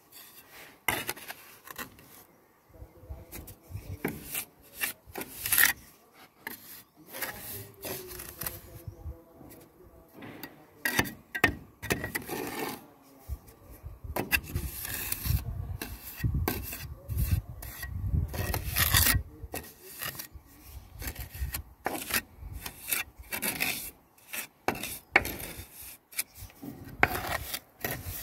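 Steel trowel scraping and pressing sand-cement mortar against clay roof tiles in short, irregular strokes as the ridge-tile joint is filled and smoothed. A low rumble runs underneath for a few seconds about halfway through.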